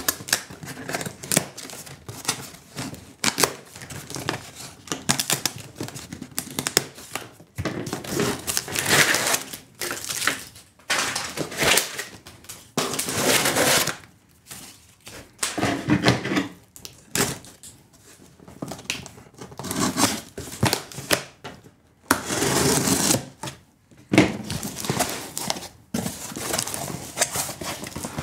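Cardboard shipping box being unpacked: the plastic strapping is cut and pulled off, the box is opened and foam packing is handled. The result is an irregular run of crackling, scraping and clicking handling noises with brief pauses.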